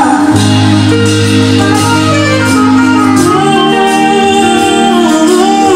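Live band music with a singer, sustained chords over a held bass, the voice sliding through drawn-out notes at the start and again near the end.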